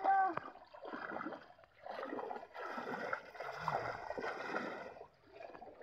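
Shallow pond water splashing and sloshing in uneven bursts as several people wade and grope along the muddy bank with their hands, feeling for fish.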